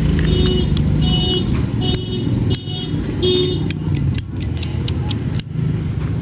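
Steady street traffic with a vehicle horn tooting about four times, each toot about half a second long. Then, from about halfway in, comes a quick run of sharp metallic clicks, like a Zippo lighter's lid being snapped open and shut.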